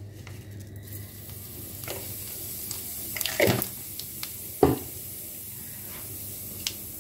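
Cumin seeds sizzling in hot oil in a kadhai, a steady crackling hiss that fills in about a second in. Two louder knocks come around the middle, with a few lighter clicks.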